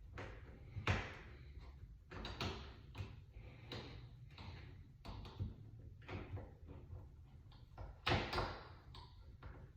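Door knob hardware being fitted into a door: irregular metal clicks and knocks as the two knob halves are pushed together through the bore, the loudest knock about a second in and another near the end.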